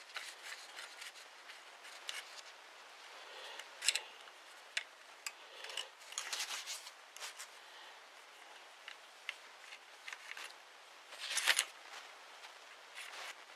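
A steel ramrod moving on its swivel under the barrel of an antique flintlock pistol: light metal scrapes and small clicks, with a louder scrape near the end.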